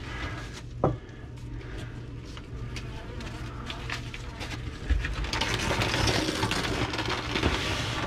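Rustling and crackling of loose insulation and debris being pulled out of a ceiling cavity by hand, with scattered small clicks, growing louder about five seconds in, over a steady low hum.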